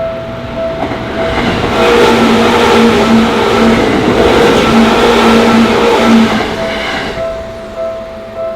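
Japanese level-crossing warning bell ringing in a steady repeated ding. A Seibu Shinjuku Line electric train passes over the crossing: its wheel and rail noise swells about a second and a half in, is loudest for several seconds, and fades away about seven seconds in.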